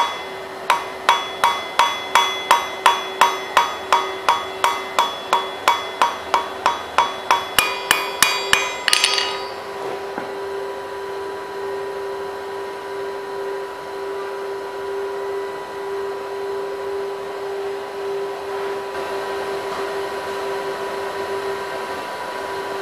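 Hand hammer striking a hot bar on the anvil about three times a second, each blow ringing, as the end is drawn out into a taper. The blows come lighter and quicker for the last second or so, then stop about nine seconds in, leaving a steady hum.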